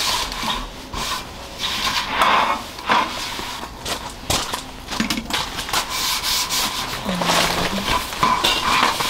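Table top being wiped down with a cloth: a run of irregular rubbing swishes, with a few light knocks.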